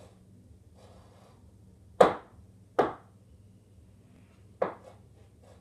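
Chalk knocking sharply against a chalkboard three times while drawing, with faint scratching of chalk on the board between the knocks.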